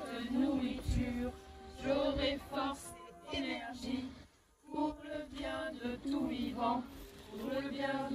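A group of children and adults singing a scout meal song together without accompaniment, with a brief break about halfway through.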